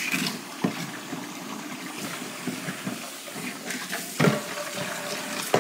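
Kitchen tap running water in a steady stream, with a few light knocks of dishes or utensils against the counter.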